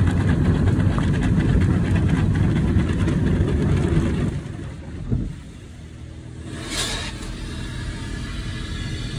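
Spinning cloth brushes of a tunnel car wash scrubbing against the car body, heard from inside the car: a loud, heavy rumble that drops off about four seconds in, leaving a quieter machinery hum. A short knock follows, and a brief hiss comes a little later.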